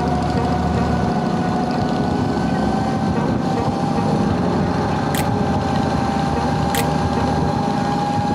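Electric dirt bike's motor whining steadily while riding, its pitch creeping slowly upward as speed builds, over wind and road noise. Two brief high ticks in the second half.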